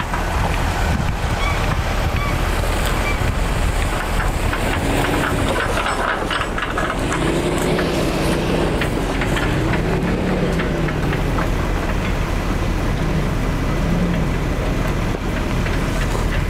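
Wind buffeting the microphone over the engine of a Ford Ranger Wildtrak pickup (3.2-litre diesel) driving away along a rutted dirt track. About a third of the way in, its engine note starts to waver up and down for several seconds.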